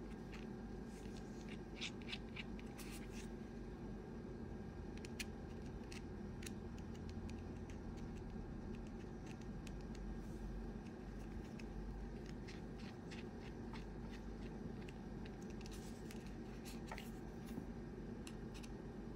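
Small screwdriver working the tiny screws of a Hubsan Zino Mini Pro drone battery's plastic shell: faint scattered clicks and scratches, in clusters a couple of seconds in and again near the end, over a steady low hum.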